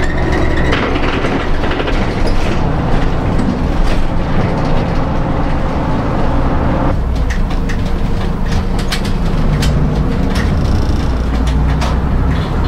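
Inside a moving route bus: the engine's steady low rumble and road noise. The sound changes abruptly about seven seconds in, and light clicks and rattles follow.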